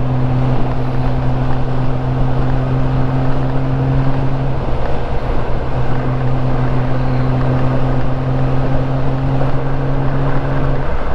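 Honda Gold Wing GL1500's flat-six engine running at a steady cruise under wind rush. Its steady hum fades for about a second halfway through, then returns until just before the end.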